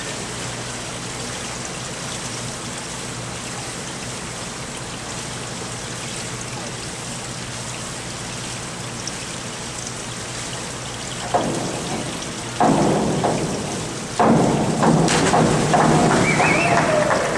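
Steady rain-like hiss of water in an indoor diving pool. Then, from about eleven seconds in, louder bursts of noise: a diver's entry splash and clapping from the poolside near the end.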